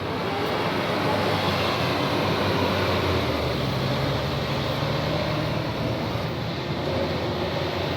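A bus passing on the road, its engine running with a steady rush of road noise that grows louder about a second in.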